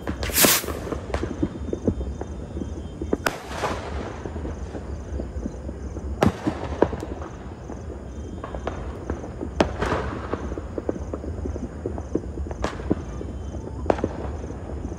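New Year's Eve fireworks and firecrackers going off at a distance: scattered sharp bangs every few seconds, the loudest about half a second in, with many smaller pops between them over a steady low rumble.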